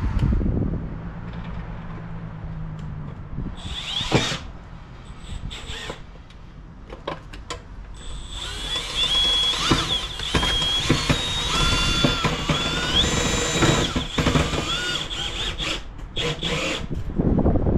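Compact Milwaukee Fuel cordless drill-driver running in short spurts, driving fasteners at the bottom of an electric meter pan: a brief burst about four seconds in, then a longer stretch of whine whose pitch steps up and down with the trigger.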